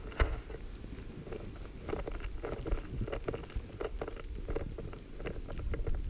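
Snowboard sliding through fresh powder snow, with wind buffeting the microphone and scattered small knocks and scrapes; it grows louder near the end.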